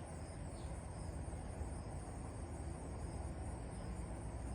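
Cicadas buzzing steadily in summer heat, a continuous high drone, over a low steady rumble.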